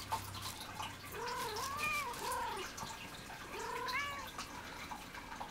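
Domestic cat meowing: a quick run of short meows, each rising then falling in pitch, from about one second in to nearly three seconds, then one more meow about four seconds in.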